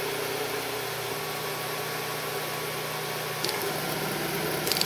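Home-built laser-cut 3D printer running a print: its two cooling fans whir steadily while the stepper motors hum. The motors' tones change about a second in and again after about three seconds, with a few light clicks near the end.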